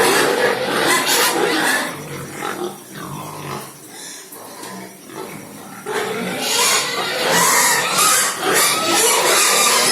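Pigs calling in a pen: loud for about the first two seconds, quieter through the middle, then loud again from about six seconds in.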